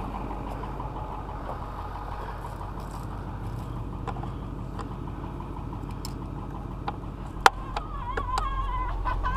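A vehicle engine idling steadily, with a few sharp metallic clicks from a screwdriver working on a licence plate late on.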